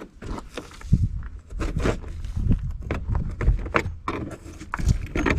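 Irregular knocks, scrapes and thumps as a stuck part, still held by one screw, is pried and worked loose.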